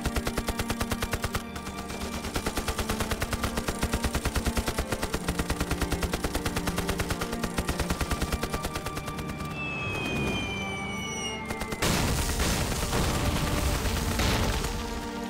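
Rapid, continuous machine-gun fire over dramatic music. About ten seconds in, a falling whistle like a dropping bomb descends for about two seconds, then a loud explosion hits and blast noise carries on to the end.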